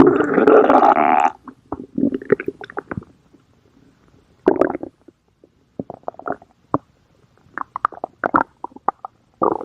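Stomach growling. A long, loud gurgle ends a little over a second in, then comes a string of short gurgles and bubbly pops with silent gaps between them.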